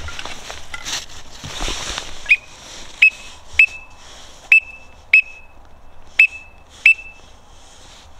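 Seven short, high whistled peeps, all at the same pitch and each with a sharp start, at uneven intervals over about five seconds, typical of a duck whistle call blown from a blind to draw in birds.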